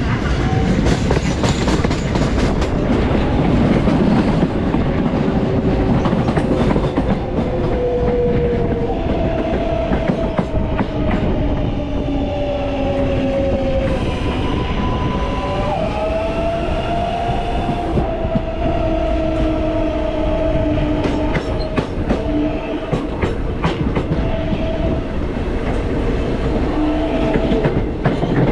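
New York City subway L train running along the track: a steady rumble with clicks of the wheels over the rail joints, and whining tones that glide up and down in pitch.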